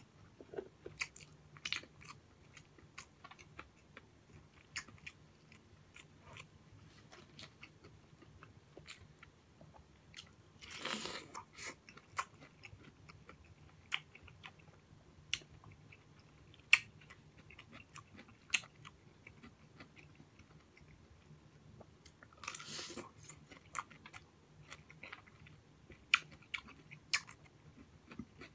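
Close-up eating of fresh pineapple slices: quiet wet chewing and biting with many scattered sharp mouth clicks. Twice, near the middle and again about four-fifths through, there is a longer hissy sound of about a second.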